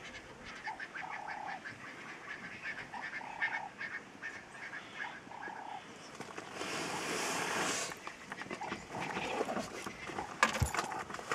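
Short animal calls repeating every second or two over faint clicking, with a rush of noise lasting about a second and a half about seven seconds in.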